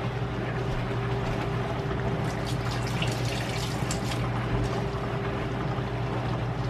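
Kitchen tap running into the sink while hands are washed, with water splashing, over a steady low hum.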